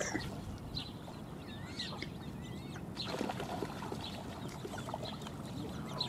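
Faint high peeping of waterbird chicks, with a few wavering calls about two seconds in, over a low steady background hiss.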